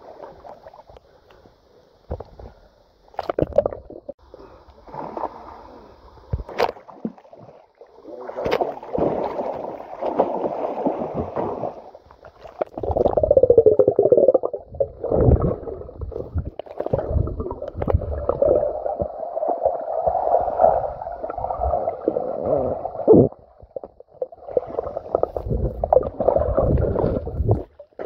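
Muffled river water gurgling and sloshing as the microphone goes under the surface, with splashes from a swimmer moving through shallow water. It is patchy with separate splashes at first, then a denser continuous rush from about a third of the way in.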